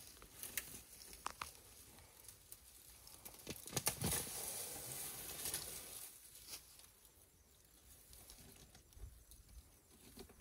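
African elephant browsing in dry brush: twigs crackling and snapping as its trunk pulls at the branches, with the loudest cluster of snaps about four seconds in.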